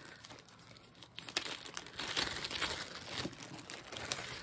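Clear plastic zip-top bag crinkling as it is handled and pulled open, with many small irregular crackles. It is quieter at first and louder from about a second in.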